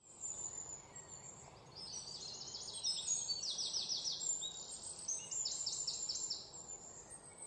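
Small birds singing: several phrases of quick, repeated high notes, each note dropping in pitch, over a faint steady background hiss.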